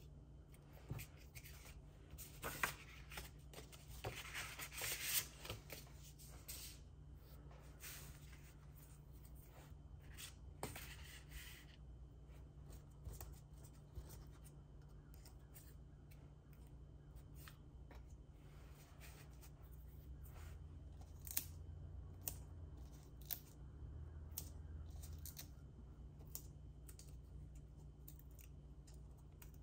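Faint paper-crafting sounds: scissors snipping and cardstock being handled, with dense runs of short snips and rustles in the first dozen seconds, then scattered clicks.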